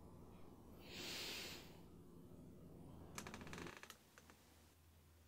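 Near-silent room with a soft hiss lasting about half a second about a second in, then a quick run of small clicks and rustles around three seconds in, followed by a low steady hum.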